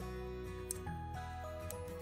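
Background music: a melody of held notes stepping up and down over a low bass line, with one short click about a third of the way in.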